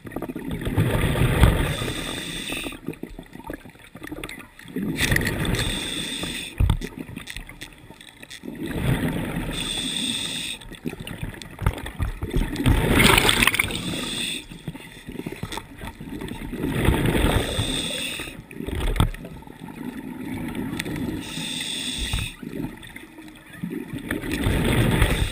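Scuba diver breathing through a regulator underwater: a hiss on each inhale, then a bubbly, gurgling rush of exhaled air. The cycle repeats about every three to four seconds.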